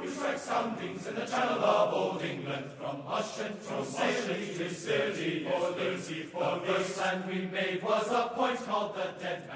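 A group of voices chanting together in phrases a few seconds long.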